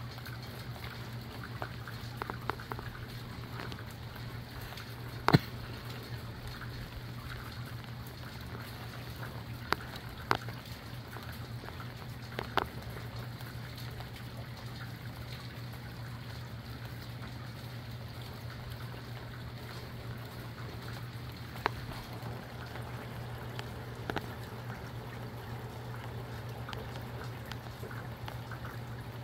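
Steady rainfall with a low hum underneath, broken by a few sharp drip clicks, the loudest about five seconds in.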